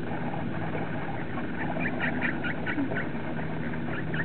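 Ducks quacking: a quick run of short quacks in the middle, over a steady low hum.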